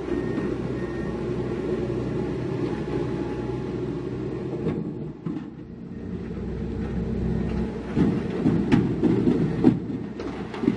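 Heavy diesel construction machinery running steadily, with a few sharp knocks and louder surges in the last few seconds.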